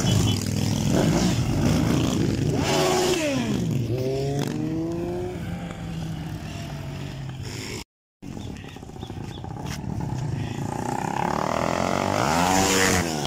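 Motorcycles riding past one after another, each engine note falling in pitch as it goes by. A louder pass comes near the end, and the sound cuts out briefly about eight seconds in.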